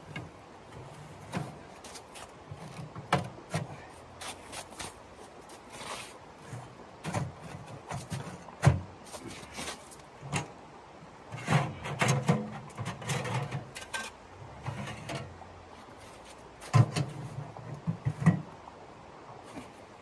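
Irregular clanks, knocks and scrapes of a sheet-metal camping wood stove being handled and assembled, its legs and chimney pipe being fitted, busiest a little past halfway and again near the end.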